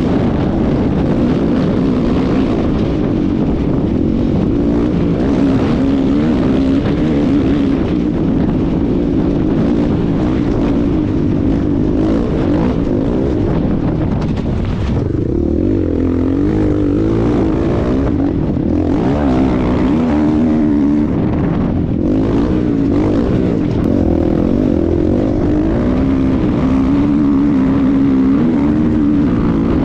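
KTM 500 EXC's single-cylinder four-stroke engine running hard at race speed, its note rising and falling with the throttle and easing off briefly around the middle.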